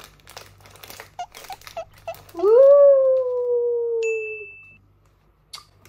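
A plastic snack wrapper crinkling as it is opened, then a woman's long drawn-out "ooh" that rises and then slowly sinks in pitch.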